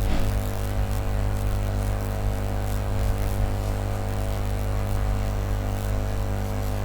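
Steady electrical hum and buzz, with a hiss of static behind it, picked up by the recording setup.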